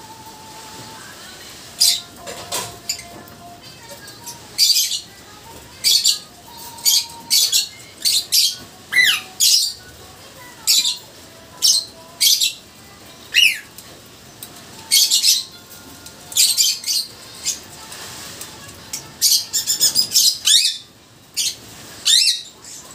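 A mating pair of lovebirds giving short, sharp, high-pitched chirps and squawks, some falling in pitch, about one or two a second and coming in quicker runs towards the end.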